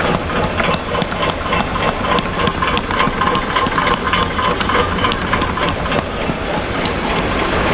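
ZP-420D-19 rotary tablet press running: its turret spins and its punches clatter in a rapid stream of clicks over a steady machine hum.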